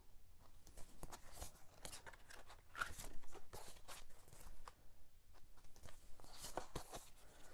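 A small stack of stiff printed cards being handled and shuffled: quiet rustling with scattered light taps and clicks of card against card.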